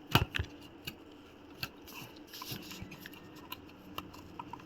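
Two sharp clicks right at the start, then scattered faint ticks and rubbing: a power supply cable being plugged into a MacBook Pro logic board and handled.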